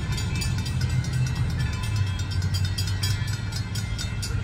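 Baldwin 0-6-0 switcher steam locomotive approaching slowly: a steady low rumble under a fast, even run of sharp strikes, several a second.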